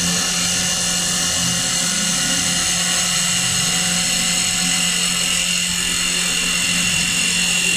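CNC wood turning lathe cutting a spinning wooden spindle into a baluster: a steady machine whine with several high tones over the noise of the cut. The sound changes abruptly near the end.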